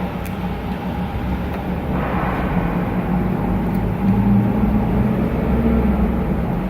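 Do-All V-26 vertical bandsaw running under power, a steady machine hum with blade and drive noise. The sound grows fuller about two seconds in and louder about four seconds in, as the saw is run through its cycles.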